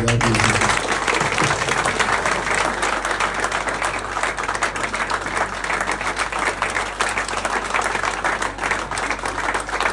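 Applause from a small standing crowd of people clapping, breaking out suddenly and going on steadily.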